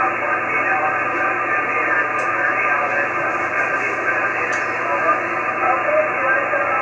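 Icom IC-9700 receive audio from the XW-2B (CAS-2B) linear transponder downlink: a steady, narrow-band hiss with garbled single-sideband voices of other stations working through the satellite.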